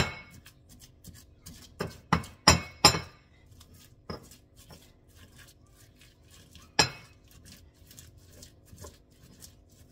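A pestle mashing banana in a hard black mortar: soft pounding and scraping throughout, with sharp clinks where the pestle strikes the mortar, four in quick succession about two seconds in and another loud one near seven seconds.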